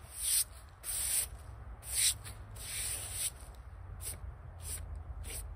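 A straw broom swept in quick strokes across a freshly milled white oak slab, its bristles swishing about seven times; the last few strokes are shorter and softer.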